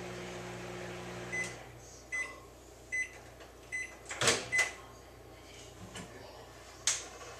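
Microwave oven running with a steady hum that cuts off about one and a half seconds in as its 5-second cycle ends, followed by five short end-of-cycle beeps about 0.8 s apart. A sharp click, the door being opened, comes over the last beeps, and another click near the end.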